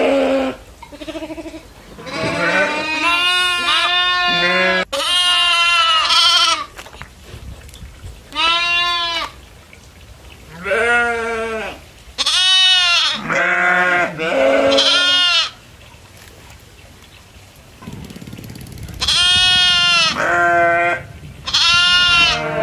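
Goats bleating: about a dozen wavering, high-pitched calls, some close together and overlapping, with a pause of a few seconds before the last few calls.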